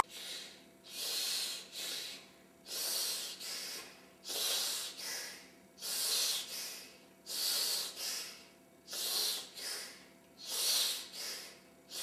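A person breathing heavily and rhythmically close to the microphone: a longer breath followed by a short one, repeated seven times at an even pace.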